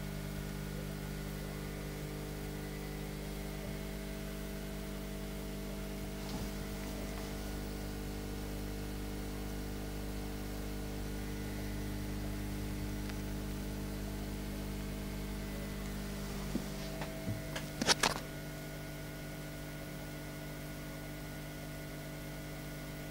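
Steady electric hum of an aquarium pump, several even tones over a faint hiss. About three quarters of the way through comes a brief cluster of clicks and knocks.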